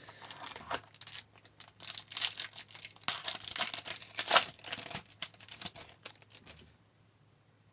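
Foil wrapper of a trading-card pack being torn open and crinkled in the hands, an uneven run of crackling rustles that stops near the end.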